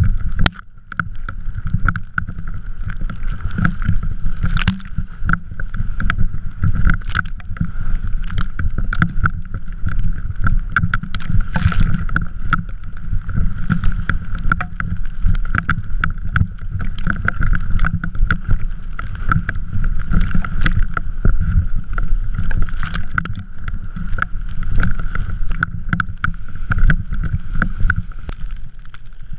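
Drift trike running over snow, heard from a camera on the rider: a heavy wind rumble on the microphone with constant rattling and knocks from the trike, over a steady high hum.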